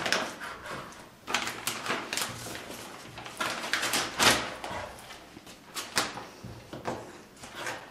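A plastic zip-lock bag crinkling and a kitchen knife knocking and scraping on a wooden cutting board in irregular bursts, as raw chicken pieces are cut and pushed into the bag.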